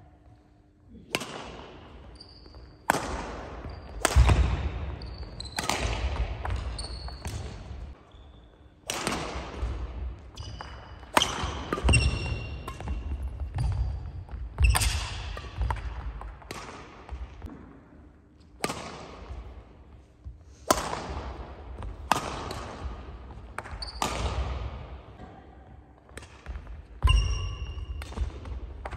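Badminton rallies: rackets hit the shuttlecock every second or two, each crack ringing in a large hall. Short high squeaks of sneakers and a few heavier foot thuds on the wooden court come in between, with short pauses between points.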